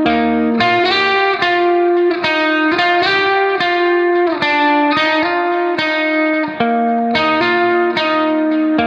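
Background music: a slow guitar melody with effects, each note held and the pitch changing about once a second.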